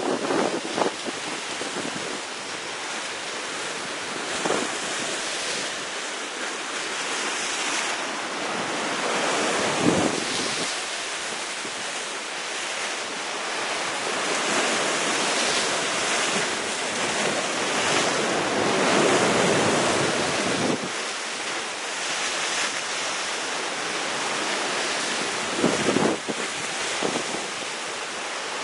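Sea waves breaking against the rocks at the foot of a cliff: a continuous rushing wash that swells and ebbs, with sharper crashes about ten seconds in and again near the end.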